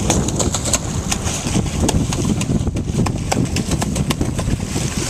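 Water splashing and slapping against a boat's side as a hooked fish thrashes at the surface, with irregular sharp slaps and knocks over wind buffeting the microphone.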